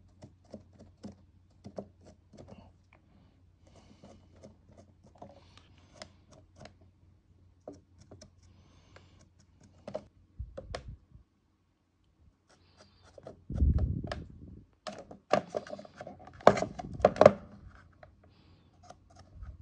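A felt-tip marker tracing on the hard plastic of a cyclotron lid while fingers handle the plastic parts, heard as scattered small clicks and scratches. About two-thirds of the way through there is a louder bump, followed by a cluster of sharper knocks as the lid is handled.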